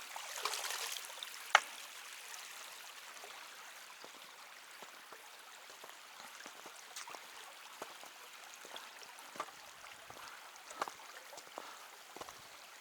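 A small stream trickling faintly and steadily, with scattered light clicks and one sharp click about a second and a half in.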